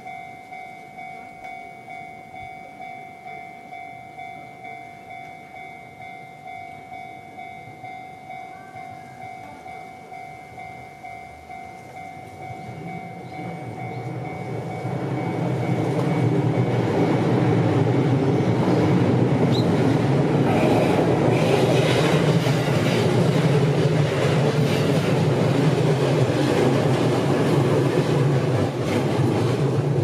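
Japanese level-crossing warning bell dinging in an even repeating beat. About halfway through, an electric train comes up and passes loudly, its rumble drowning out the bell.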